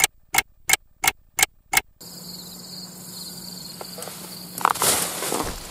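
A fishing reel's line clicker ticking six times, about three a second, as a carp takes line at the start of a bite. Crickets and insects chirr steadily in the background, and the reel rattles briefly near the end.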